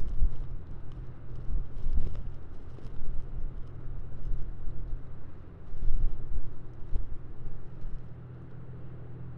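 City traffic's steady low hum, with wind gusting against the microphone in uneven low rumbles during a snow squall; the gusts ease off near the end.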